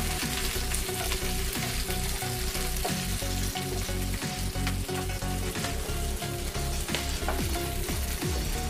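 Green bell pepper pieces sizzling as they fry in oil in a frying pan. A slotted spatula stirring them scrapes and taps against the pan now and then.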